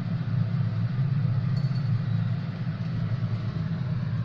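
A steady low rumble, like an engine idling.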